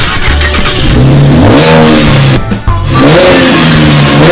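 Car engine revving hard, its pitch climbing, dropping briefly, then climbing again.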